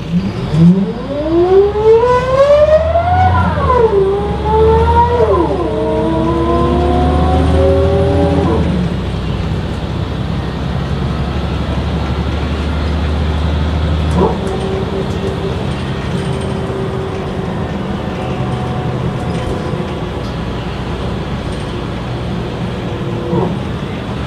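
City bus with a CAT C7 diesel and a very loud ZF six-speed automatic gearbox, pulling away. The gearbox whine rises in pitch and drops sharply twice as it shifts up, about four and five-and-a-half seconds in, then cuts out about eight seconds in. A quieter, steadier gearbox whine returns about halfway through over the engine's low drone.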